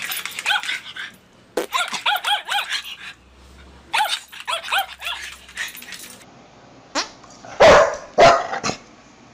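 Small white dog barking in short runs of rapid high-pitched yaps. Near the end come a few louder, lower barks.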